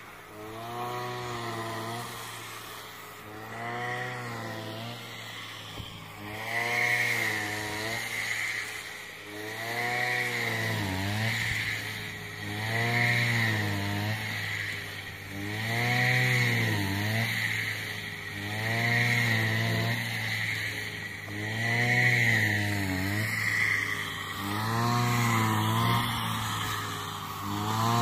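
Small engine of a homemade rice-cutting mower running steadily, its pitch rising and falling about every three seconds as it cuts through the rice.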